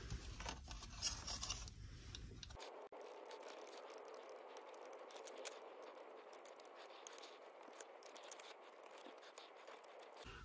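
Faint, scattered scratches and ticks of a hobby knife blade cutting through metal-foil HVAC tape stuck onto a plastic model car body.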